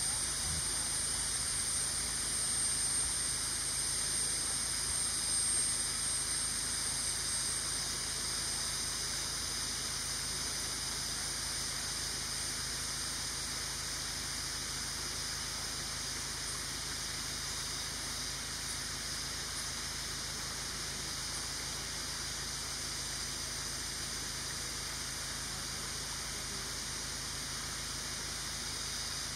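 Steady high-pitched drone of a forest insect chorus, made of several layered shrill bands, with the highest band fading out about eight seconds in.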